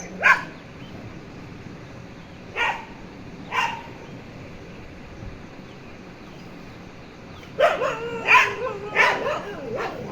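Dog barking: three short barks a second or so apart, then a rapid run of sharp barks and yelps near the end.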